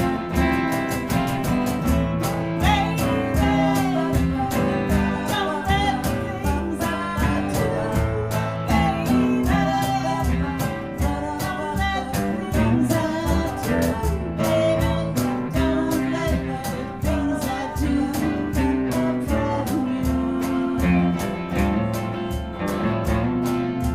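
Live music led by guitars with a steady strummed beat.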